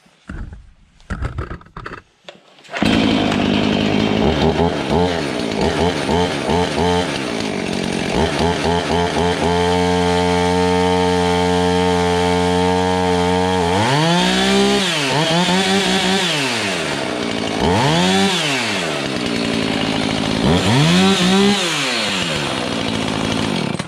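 Husqvarna 450 Rancher two-stroke chainsaw starting up about three seconds in, idling, then revved up and down about four times before it is shut off.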